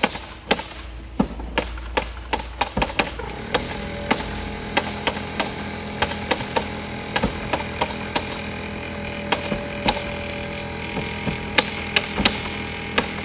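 Irregular sharp knocks from roofers fastening synthetic roof underlayment: hammer blows driving plastic cap nails mixed with the shots of a pneumatic cap nailer, at times several a second. A steady machine hum comes in about three and a half seconds in.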